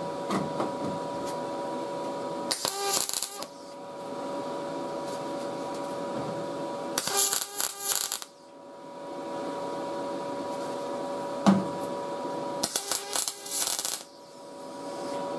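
MIG welder (YesWelder MIG 205DS) laying three short tack welds on a thin sheet-metal patch panel: three crackling arc bursts of about a second each, several seconds apart.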